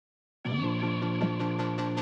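Background music starting about half a second in, with held chords and a light ticking beat that builds.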